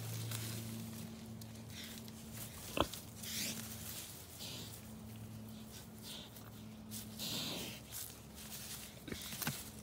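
A sow rooting in dry leaf litter and dirt: snuffling and rustling in short irregular bursts, with a sharp click about three seconds in, over a low steady hum.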